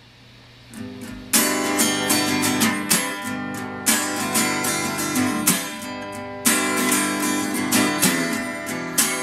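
Acoustic guitar playing a song's instrumental intro: a few quiet notes, then loud strummed chords from about a second in, with a steady rhythm of strokes.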